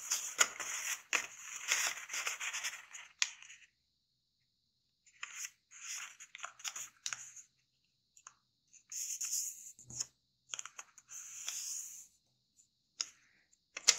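A square of kami origami paper rustling and crackling as it is folded along a diagonal and the crease is pressed flat with the fingers, in several bursts with pauses of a second or two between.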